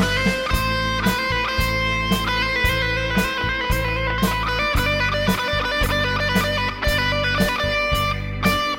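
Electric guitar playing a sustained lead melody, held notes changing about every half second, over a steady low accompaniment with an even beat.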